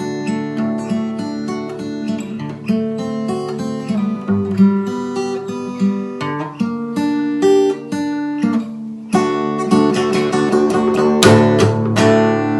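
Background music of plucked and strummed acoustic guitar, growing fuller and louder about nine seconds in.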